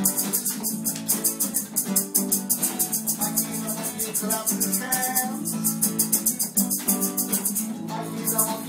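Two acoustic guitars strummed in a quick, even rhythm with no singing: an instrumental break in a children's song.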